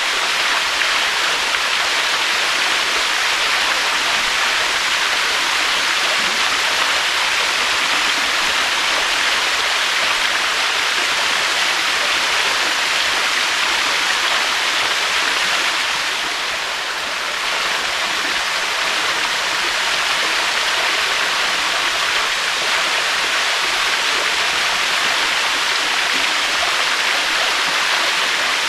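Waterfall: water falling and rushing in a steady, even hiss, easing slightly for about a second near the middle.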